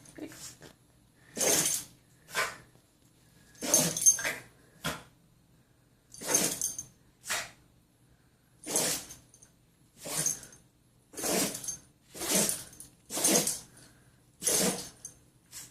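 A dog sneezing over and over in a sneezing fit, about a dozen short, sharp sneezes roughly a second apart, some in quick pairs.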